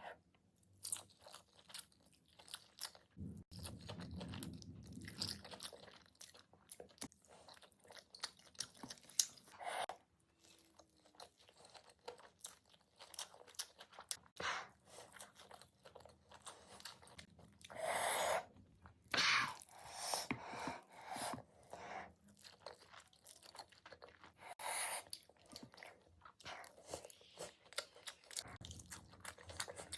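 Close-up chewing and crunching of a person eating crispy tawa-fried chicken and cheese Maggi noodles, as a run of irregular bites and chews with a few louder ones past the middle.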